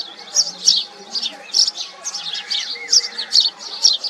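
House sparrows chirping: loud, sharp chirps repeated two or three a second, with fainter lower notes underneath.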